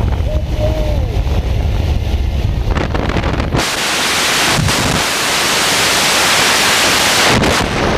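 Wind buffeting the microphone at the open door of a skydiving plane, over the low rumble of the aircraft's engine and propeller. About halfway through the sound changes suddenly to a loud, even rush of wind hiss.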